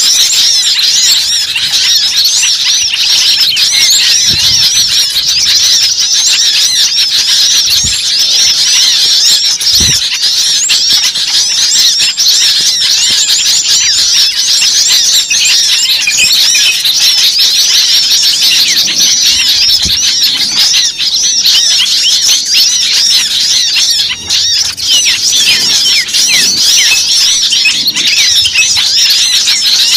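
Many birds chirping at once, a dense, continuous mass of overlapping high, short calls.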